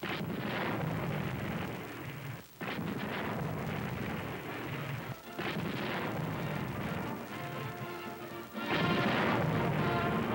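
A US Navy destroyer's 5-inch guns firing a salute: three booming reports about two and a half seconds apart, each ringing on after the blast. Band music comes in over the last few seconds.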